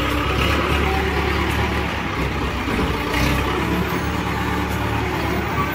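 Diesel engine of a mobile crane running steadily with a low drone.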